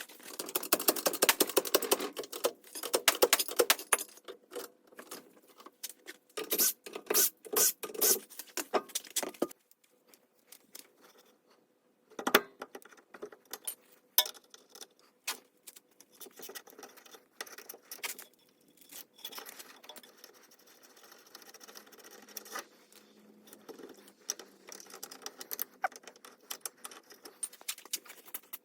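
Metal hand tools and parts clinking, rattling and scraping in hands-on mechanical work. The clicks come thick and fast for about the first ten seconds, stop briefly, then return scattered and lighter.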